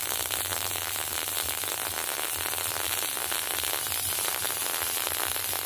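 MIG welding arc crackling steadily as the wire feeds into the puddle on 16-gauge sheet.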